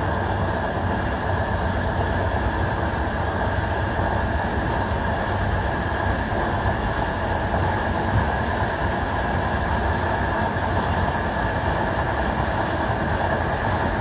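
Passenger train running, heard from its last carriage: a steady rolling noise of wheels on the rails, even throughout, with no distinct clicks or beats.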